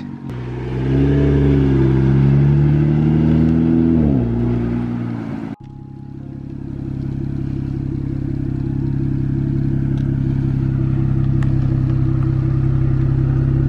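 BMW 335is's N54 twin-turbo straight-six pulling away, its note rising about a second in and falling again after about four seconds. After a sudden cut it idles steadily, heard close at the rear. This running sound is one the owner isn't sure he should be concerned about.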